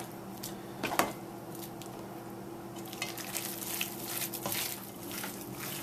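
Hands squishing raw chicken pieces through a wet flour-and-egg coating in a stainless steel bowl: soft wet squelches and light clicks against the metal, the sharpest about a second in, over a faint steady hum.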